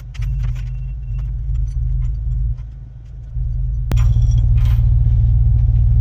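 Kubota U55-4 mini excavator's diesel engine running, with light metallic clinks in the first second. About four seconds in there is a sharp click and the engine gets louder and steadier.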